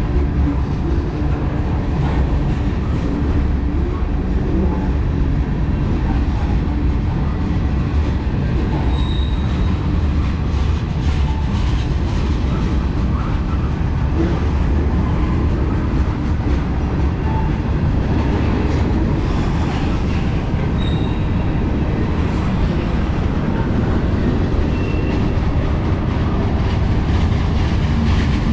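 Freight cars of a passing CSX manifest train rolling by on the rails: a steady heavy rumble of wheels on track, with a few brief high wheel squeals.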